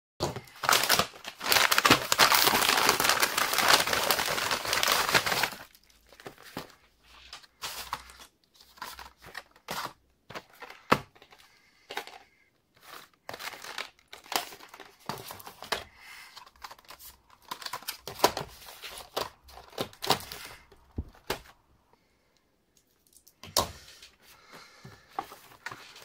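Plastic packaging loudly crinkling and tearing for about five seconds, then quieter rustling, taps and clicks of cardboard retail boxes of PC parts being handled and set down.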